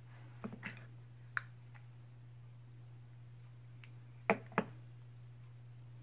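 Light clicks and taps of small objects being handled: a few soft ones near the start, then two sharper clicks in quick succession a little past four seconds, over a steady low electrical hum.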